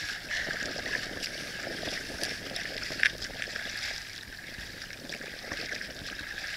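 Gentle water lapping and trickling around a sea kayak on calm sea, with small splashes and one sharper splash or knock about three seconds in.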